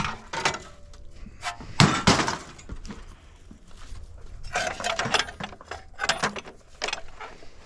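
Scrap metal clattering and banging as pieces are handled and tossed, a run of separate sharp impacts with some ringing, the loudest about two seconds in.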